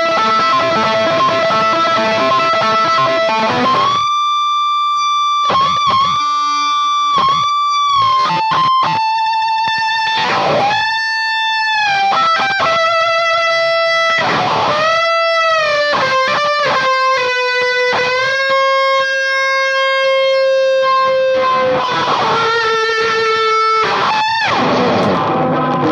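Electric guitar played through distortion and fuzz pedals into an amp: dense distorted chords for the first four seconds or so, then sustained, singing lead notes with string bends and vibrato, with a wah pedal in the chain.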